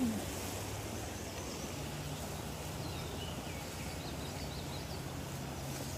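Steady outdoor background noise with a faint low hum, and a few faint bird chirps about halfway through.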